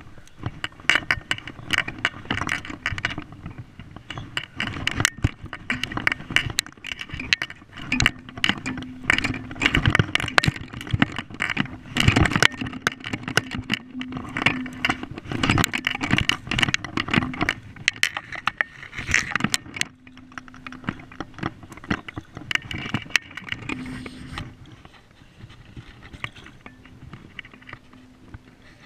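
Handling noise on a body-worn camera: rubber waders and clothing rubbing and scraping, with dense clicks, knocks and rattles of gear while walking down a riverbank. It grows quieter over the last few seconds.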